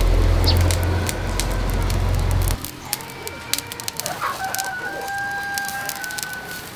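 A rooster crows once, a long held call starting a little over four seconds in, over scattered sharp crackles from the charcoal fire under the spit. A loud low rumble fills the first two and a half seconds and cuts off suddenly.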